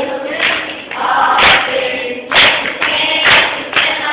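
Children's choir singing a church song through a microphone, with sharp beats about once a second.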